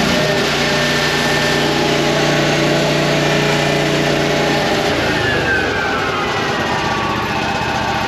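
Miller Trailblazer welder-generator's gasoline engine running steadily just after starting up. About five seconds in its speed drops and it settles to a lower idle.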